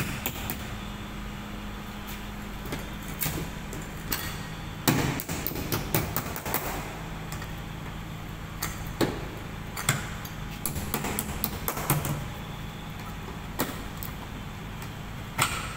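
Metal clips on a wooden plywood shipping crate being pried open with a hand tool: irregular sharp metallic clicks and knocks, about a dozen, with a heavier knock against the crate about five seconds in, over a steady background hum.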